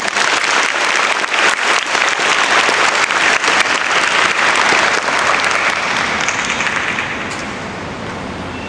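Assembly audience of students applauding: many hands clapping densely together, then dying away about seven seconds in.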